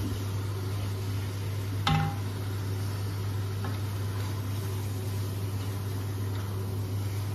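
Kitchen extractor fan humming steadily while raw chicken pieces sizzle faintly as they are stirred and browned in a pot with a wooden spoon. One sharp clank with a short ring about two seconds in.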